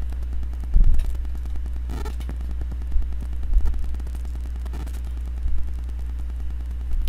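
A steady low hum, with a few soft clicks and knocks from typing on a computer keyboard and clicking a mouse.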